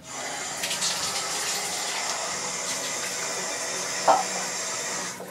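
Water running steadily from a tap, starting and stopping abruptly, with a short sharp knock about four seconds in.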